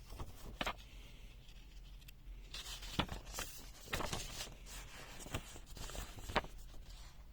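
Close handling noise: rustling with several sharp clicks and knocks, busiest in the second half.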